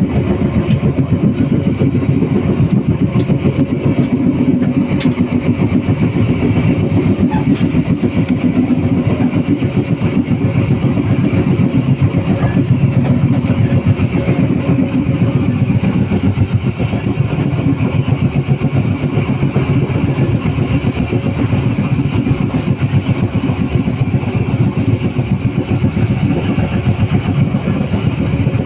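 Local passenger train running between stations, heard from inside the coach: a loud, steady rumble of the train under way.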